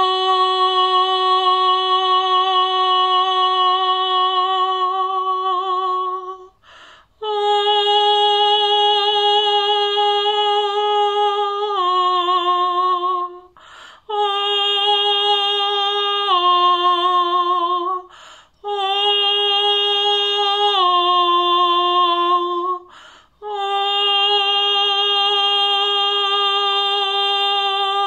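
A woman singing long, held, wordless vowel tones, in five breaths with short pauses between. Three of the middle phrases step down in pitch partway through.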